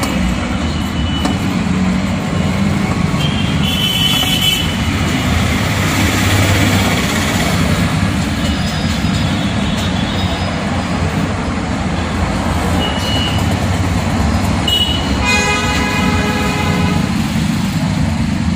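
Road traffic: a steady rumble of passing vehicles, with horns tooting briefly several times and one longer horn blast about fifteen seconds in.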